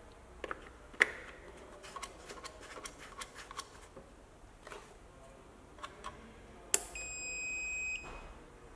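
Plastic clicks and taps as a cable connector is pushed and locked into the Anova TPB4500 pruning shears' battery pack. Then a sharp switch click and a steady high beep of about a second as the battery pack powers on.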